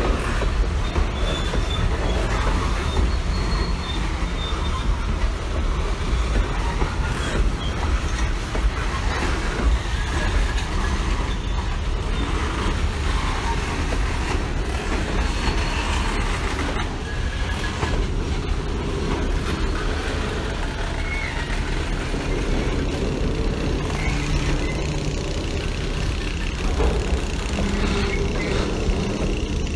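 CSX freight train rolling by, a steady rumble of wheels and cars on the rails with a faint thin squeal here and there.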